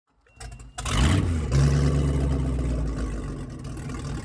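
An engine comes in under a second in, rises briefly in pitch, then runs steadily.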